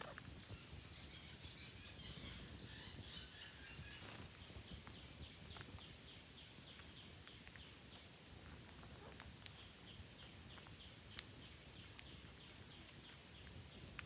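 Faint outdoor ambience: a low hiss with a steady series of faint high chirps, about three a second, through the second half, and a few scattered soft clicks.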